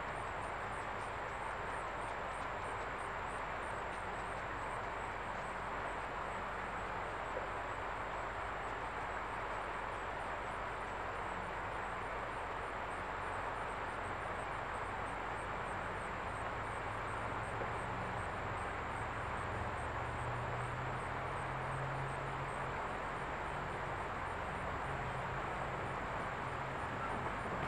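Distant diesel locomotive engine humming low, growing a little louder and stepping in pitch in the second half, under a steady outdoor hiss with a faint, regular high chirping.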